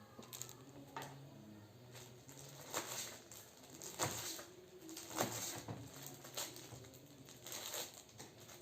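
Flour-battered tempe frying in hot oil: irregular sharp crackles and pops, with occasional knocks of a utensil in the pan, over a low steady hum.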